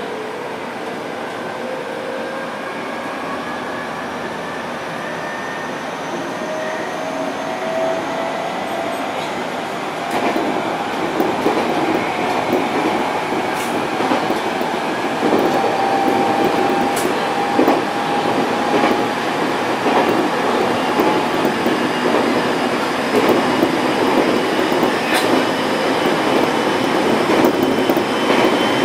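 701-series electric train running, its motors whining in several tones that rise steadily in pitch as it gathers speed, growing louder partway through. The wheels click over rail joints now and then.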